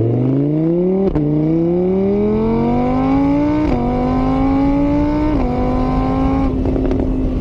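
A vehicle engine accelerating up through the gears. Its pitch climbs steadily and drops sharply at each of three upshifts, about one, three and a half and five and a half seconds in, then levels off near the end.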